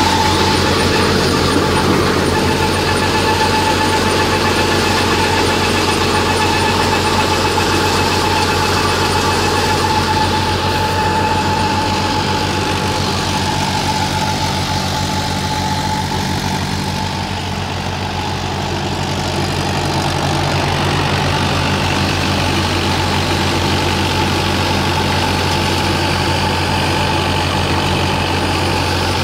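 Tractor-driven grain thresher running: the tractor's diesel engine under load together with the thresher's drum and fan, a loud, continuous mechanical drone with a steady whine over it. The noise dips a little about two-thirds of the way through, then picks back up.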